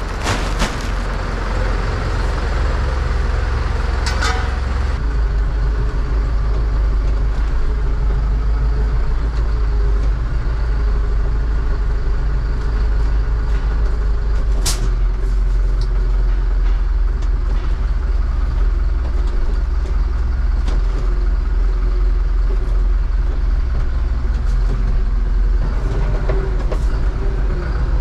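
Zetor 16145 tractor's turbocharged diesel engine running steadily, heard from inside the cab, with a few short clicks and knocks.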